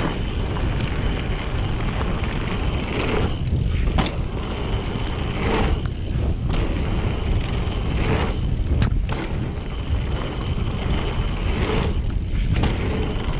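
Mountain bike rolling fast over dirt, with wind rushing loudly over the microphone the whole time. A few short clacks and thuds come from the bike as it takes small jumps and lands.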